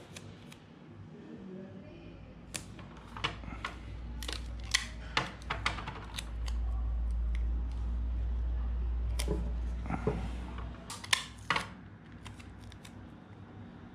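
Small handling sounds of clear tape and paper: scattered clicks and crinkles as pressed leaves are taped down onto a page. A low rumble builds from about two seconds in, is loudest from about six to eleven seconds, then fades.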